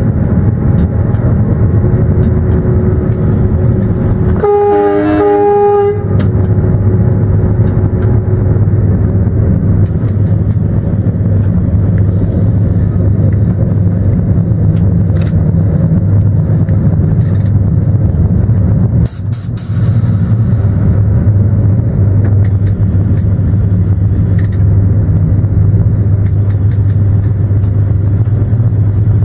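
Train running, heard from the driver's cab as a steady low drone. About four and a half seconds in, the train's horn sounds once for about a second and a half.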